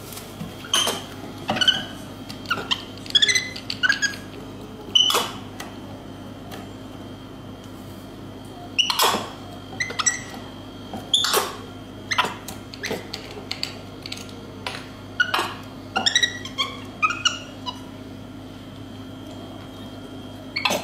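Capuchin monkey giving short, high squeaky chirps that slide in pitch, about twenty in all, mixed with sharp clicks as it handles a plastic bottle and twists off its cap. A steady low hum and a faint high steady tone run underneath.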